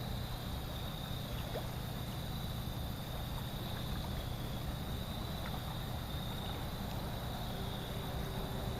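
The swollen Susquehanna River flowing past a boat ramp after flooding: a steady low rushing noise, with a thin, steady high-pitched hum above it.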